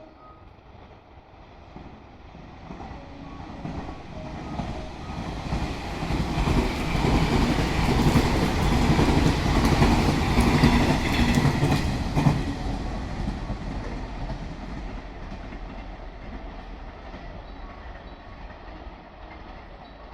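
Electric train passing on the Hakubi Line: it grows louder as it approaches, is loudest for several seconds with a rapid clatter of wheels over the rail joints, then fades as it moves away.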